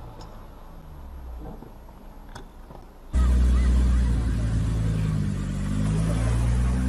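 Faint road noise with a couple of light clicks. About three seconds in, it gives way suddenly to a Renault Clio hatchback's engine, loud and revving up and down as the car drives through shallow floodwater.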